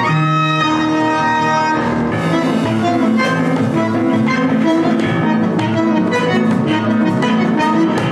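Tango quartet playing live: bandoneon, violin, piano and percussion. The ensemble grows fuller and more rhythmic from about two seconds in.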